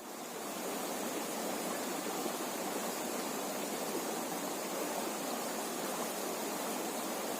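River water flowing steadily, an even rushing hiss with no breaks.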